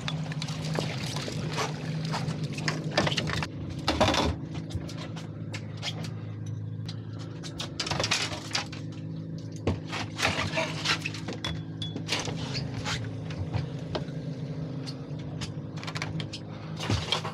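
Boat engine running with a steady low hum, with irregular sharp knocks and clatter over it, the loudest about four seconds in and again near the end.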